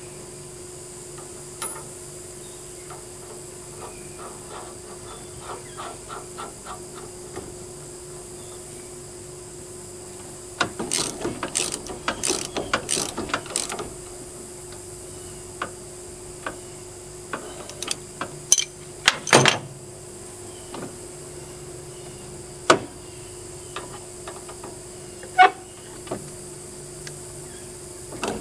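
Hand socket ratchet clicking in quick runs as it tightens the bolt through a riding mower's front steering spindle, with a few separate sharp metal clinks later on.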